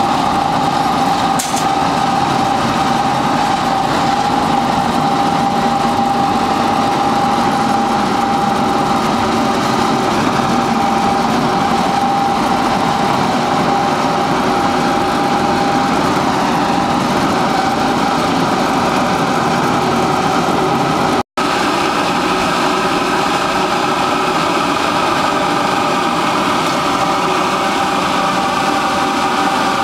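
HKJ250 animal feed pellet production line running: crusher, mixer, pellet mill and conveyors making a loud, steady mechanical din with a constant whine, which grows fainter about halfway through. The sound breaks off for an instant about two-thirds through.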